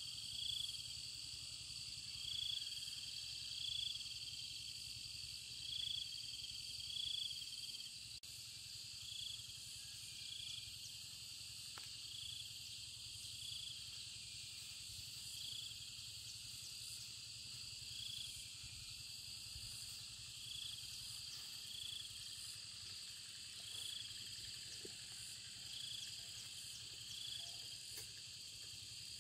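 Insects chirring steadily in high-pitched bands, with a short chirp repeating about once a second over the top.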